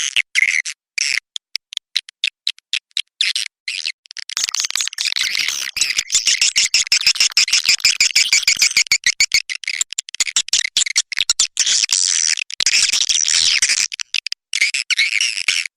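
Swiftlets' roosting call (walet inap), the chatter played to draw swiftlets into a swiftlet house: rapid high chirps and clicking twitters, thickening into a dense, overlapping chatter from about four seconds in until near the end.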